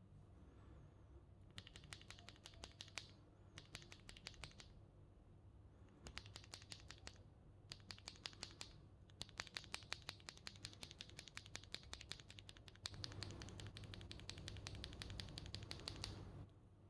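Typing on a mechanical keyboard with lubed KTT Strawberry linear switches and SA-profile keycaps. The typing comes in several quick bursts of keystrokes with short pauses between them. From about two-thirds of the way in it becomes a denser, fuller run that stops about a second before the end.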